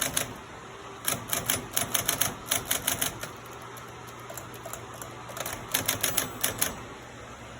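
Keys of a 1950s Smith-Corona typewriter being struck: a quick run of sharp clacks, a pause of about two seconds, then a second short run.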